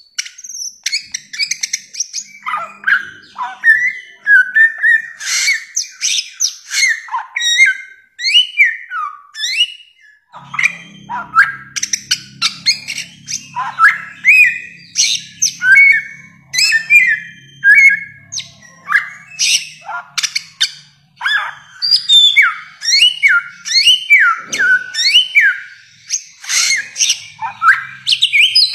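Bare-throated whistler (samyong) singing a fast, varied run of loud whistled notes, many sliding sharply downward, mixed with short chirps, with only brief pauses.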